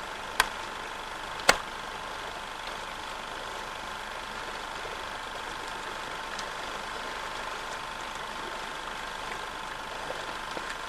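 A steady mechanical hum with hiss, with two sharp clicks about a second apart near the start.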